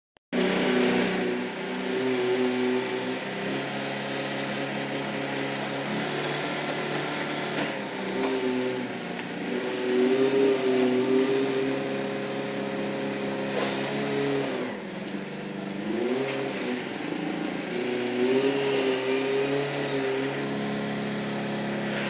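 Engine of a self-loading concrete mixer running under load, its pitch rising and falling repeatedly as the machine drives and works its loading bucket in coarse aggregate.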